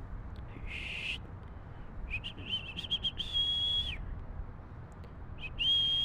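High whistled notes: a short rising note, a quick run of short chirps, then two long, steady whistles, the last near the end.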